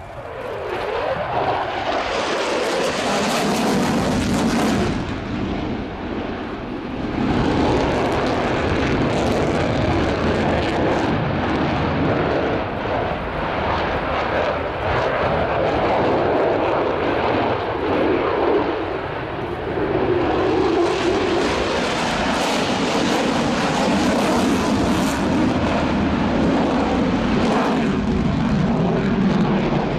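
Lockheed Martin F-22A Raptor's twin Pratt & Whitney F119 turbofans running at high power in flight, a loud jet noise that swells up within the first second. It eases off briefly about five to seven seconds in and again around twenty seconds, then builds back up.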